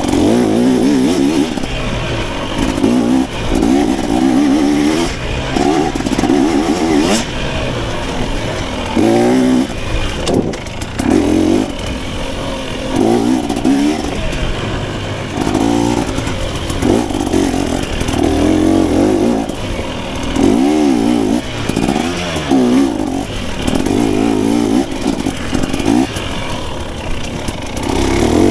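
KTM 250 dirt bike engine revving up and falling back again and again, the throttle opened and closed every second or two.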